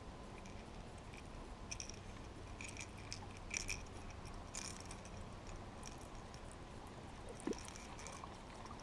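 Faint, irregular small clicks and ticks over a quiet, steady low background hum.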